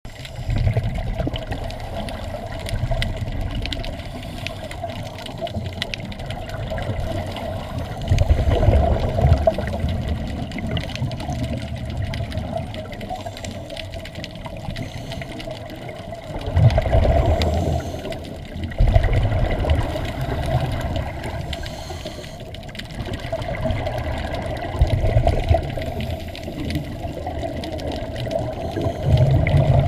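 Underwater sound of scuba divers breathing through their regulators: exhaled air bubbles out in loud, low bubbling rushes of a second or two, several times, over a steady underwater hum.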